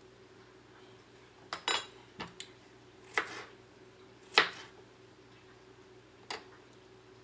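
A kitchen knife knocking on a plastic cutting board as cucumber is cut: a handful of irregular sharp knocks, the loudest about halfway through. A faint steady hum runs underneath.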